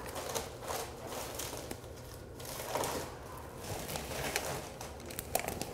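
Soft rustling and light handling noises of newspaper being gathered up, with a few short clicks near the end.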